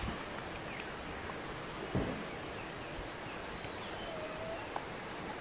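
Outdoor daytime ambience: insects keep up a steady high buzz over a soft background hiss, with a few faint chirps and a single soft thump about two seconds in.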